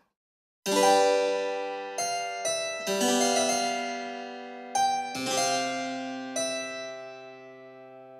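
Background music: a harpsichord playing a slow series of struck chords, each ringing and fading away, starting about half a second in.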